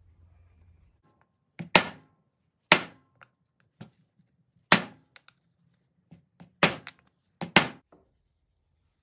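Hammer blows tapping a new front output shaft seal into a Toyota Land Cruiser HF2A transfer case housing: five sharp knocks at uneven intervals of one to two seconds, with a few lighter taps between.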